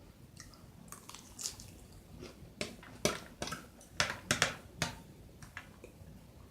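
A person chewing and biting food close to the microphone: wet, crackly mouth sounds, with a run of sharp crunchy clicks between about two and a half and five seconds in.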